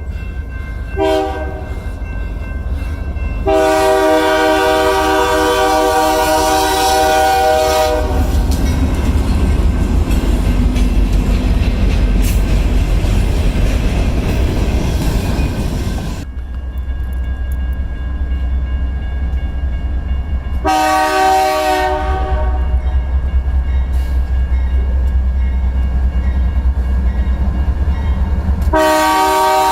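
A GE diesel freight locomotive's air horn sounds a chord in several blasts: a short one, a long one of about four seconds, then two more short ones later on. Under and between the blasts, the locomotive's engine rumbles low and the train's wheels clatter over the rails as it passes.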